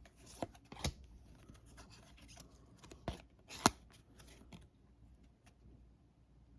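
Trading cards being handled and flipped through by hand: faint rustling and sliding of card stock, with a few sharp card clicks, the clearest about a second in and at around three and three and a half seconds.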